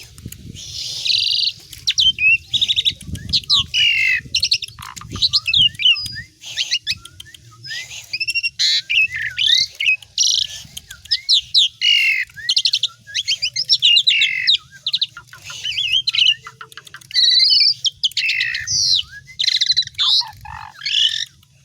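Asian pied starling (jalak suren) singing hard, pouring out a long run of varied whistles, chirps and harsh squawky notes that follow one another without a break.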